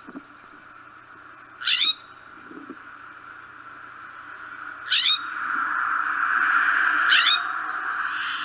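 California scrub jay giving three short, harsh, rasping calls a few seconds apart, each sweeping slightly downward, over a steady hiss.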